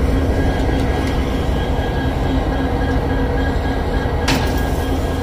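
Diesel locomotive engines idling with a steady low rumble and hum. About four seconds in, a short metallic clack as the side door of the cabless unit is unlatched and swung open.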